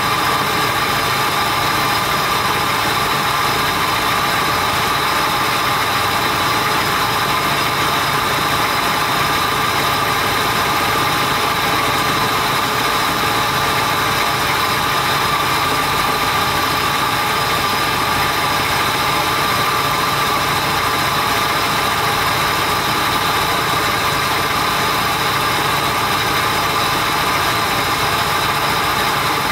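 Ford Explorer engine idling steadily, heard from underneath the truck, running so that the freshly filled 5R55W automatic transmission circulates its fluid for a level check at the pan plug.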